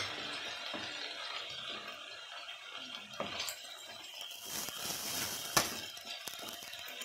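Wooden spatula stirring and scraping minced chicken, onion and tomato in a hot oiled kadai, with a soft sizzle and a few sharp taps of the spatula against the pan. The ginger-garlic paste is being mixed in and fried with the mince.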